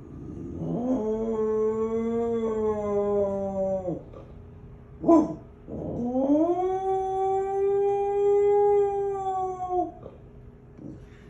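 Dog howling: two long howls of about three to four seconds each. Each one rises at the start and drops off at the end, and the second is higher-pitched. Between them comes one short, loud yip.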